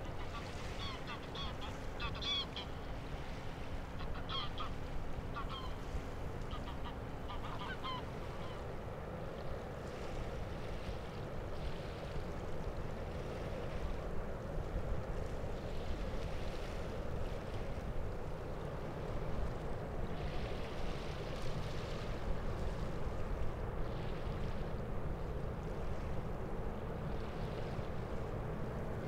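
Geese honking in a quick series of calls during the first eight seconds, over a steady low rumble of wind and a passing cargo ship.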